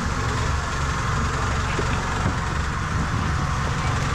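A motor vehicle's engine running steadily while under way, with a constant rushing noise over it.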